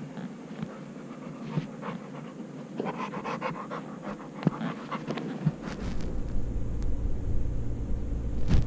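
A dog panting and mouthing right at a GoPro's microphone, with small clicks and scrapes. From about halfway a low rumble of handling noise on the microphone takes over as the camera is jostled.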